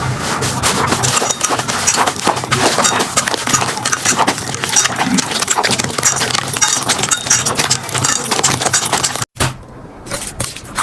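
Slime being squeezed and poked by hand, a dense run of sticky clicks and crackles. It cuts off suddenly about nine seconds in, then fainter clicking resumes.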